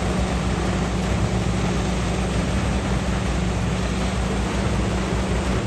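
Heavy truck diesel engine running steadily at a concrete pour, a constant low hum under a broad rushing noise.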